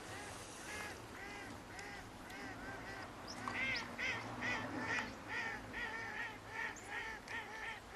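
Geese honking in a steady run of repeated calls, about two to three a second, growing louder about halfway through.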